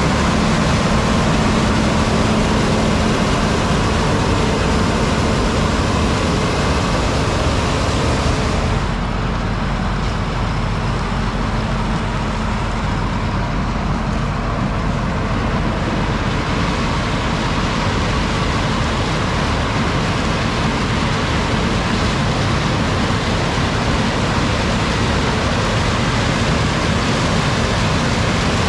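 Heavy farm machinery running steadily under load, a dense engine and machine noise; about nine seconds in it turns duller, losing its hiss.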